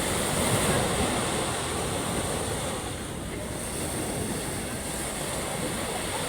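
Ocean waves washing onto a beach: a steady rush of surf that swells slightly about half a second in and eases a little around three seconds.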